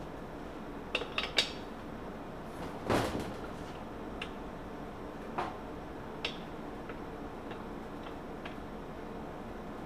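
Hand tools clinking and knocking on metal engine parts during a teardown: three quick clinks about a second in, a louder scraping clatter around three seconds, then a few scattered lighter taps, over a steady low hum.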